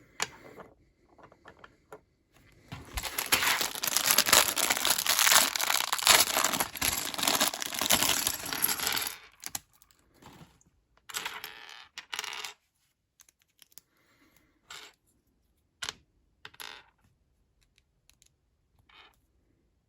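Small plastic LEGO pieces and their packaging being handled: a dense run of rustling and clattering lasting about six seconds, then a few scattered single clicks and rustles.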